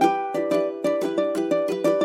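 Instrumental background music of quickly plucked string notes, each ringing briefly and fading, in a light steady rhythm with no drums.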